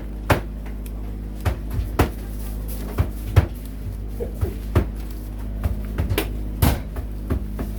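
Irregular knocks and clacks of hard objects set down and handled, about a dozen in all, over a steady low machine hum.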